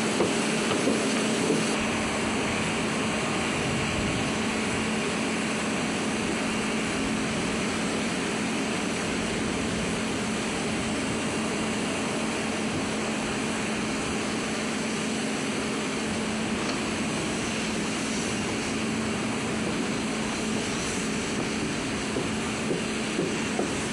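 Aircraft engine noise on the flight line: a steady rush with a low, even hum underneath.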